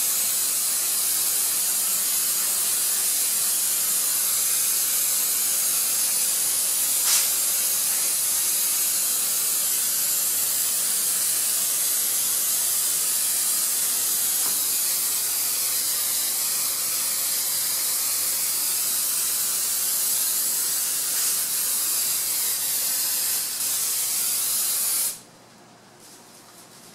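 Aerosol can of 3M Hi-Strength 90 spray contact adhesive spraying in one long, continuous hiss that cuts off abruptly about two seconds before the end.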